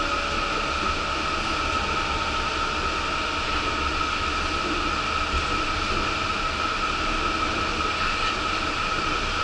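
Yurikamome rubber-tyred automated guideway train running at a steady speed, heard from inside the lead car: even running noise with a constant high whine.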